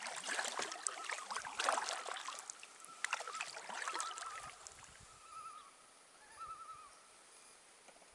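Kayak paddle splashing and dripping water for the first half, with three short, wavering calls from a bird in the middle.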